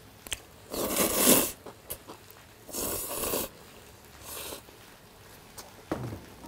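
A person slurping cold buckwheat noodles (bibim makguksu) into the mouth: a loud slurp about a second in, a second one around three seconds, and a short faint one a little after. A brief low sound of the voice near the end.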